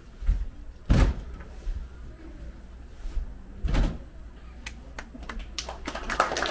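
Two heavy thumps about three seconds apart, then a run of lighter knocks and clicks near the end.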